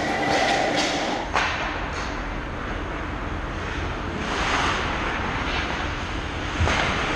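Ice-rink game sound through an action camera's microphone: a steady low rumble, with skate blades scraping the ice in a few short hisses and a sharp click about a second and a half in.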